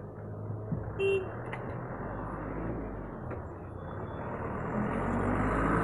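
A truck's engine and tyres approach along the street, steady at first and growing louder near the end as it draws close. A brief high chirp comes about a second in.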